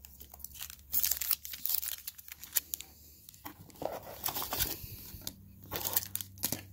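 Foil-wrapped trading-card packs crinkling and rustling as hands dig through a cardboard box, in short irregular spurts.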